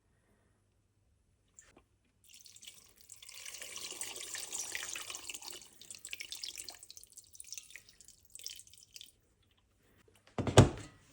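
Water running from a kitchen tap into a sink for a few seconds, then tapering off into splashes and drips. Near the end, a single loud thump.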